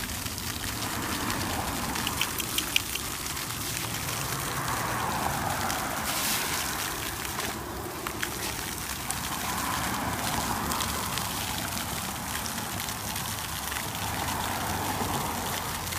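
Water jet spraying up from a broken lawn sprinkler head and splattering as a dog bites at the stream. The steady hiss swells and eases every few seconds, with a few small clicks about two seconds in.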